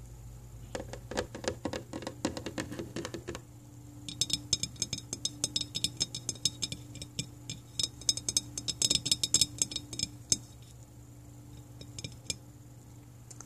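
Fingertips and fingernails tapping and scratching right on the camera, close to the microphone, as ASMR tapping. Soft, dull taps in the first few seconds give way about four seconds in to a fast run of sharp clicking taps that lasts until about ten seconds in, followed by a few scattered taps.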